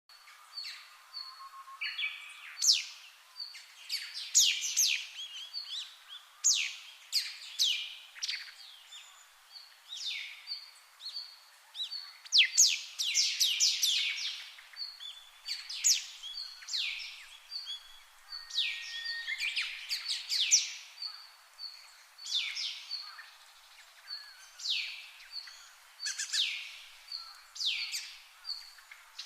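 Small birds chirping: many quick, steeply falling chirps coming in irregular clusters, with a short high note repeated over and over.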